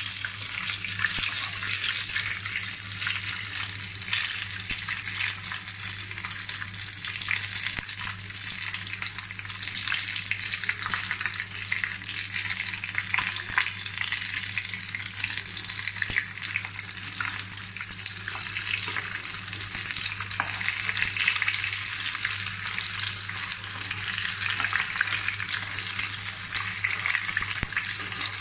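Batter-coated Bombay duck fillets frying in hot oil in a pan: a steady sizzle full of fine crackles and pops.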